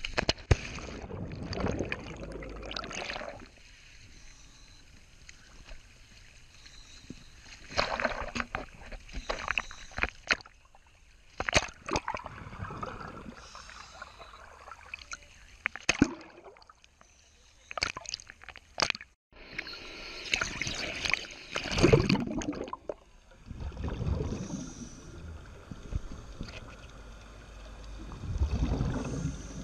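Water sloshing and splashing around a camera at the surface and under water, with bursts of bubbling from a scuba regulator's exhaust as the diver breathes out, several seconds apart.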